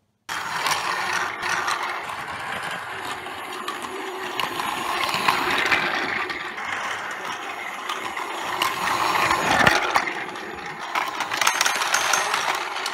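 Battery-powered Plarail toy train, a Sanyo 3000-series model, running on plastic track: a steady whirring of its small geared motor and wheels, with scattered clicks. It starts abruptly just after the start.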